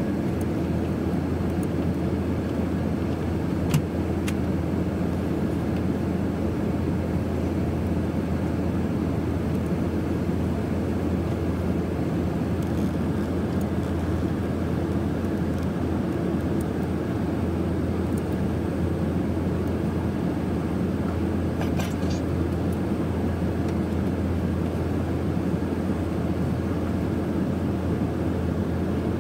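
Steady drone of cabin noise inside an Airbus A380 airliner, engines and airflow humming without change, with a short click about four seconds in and a couple of faint ones near the end.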